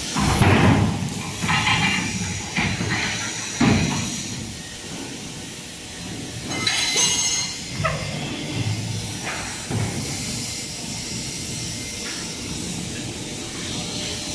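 Small hydraulic interlocking soil-brick press running through its pressing cycle: a steady pump hum with bursts of hissing and several clunks of the press and mould.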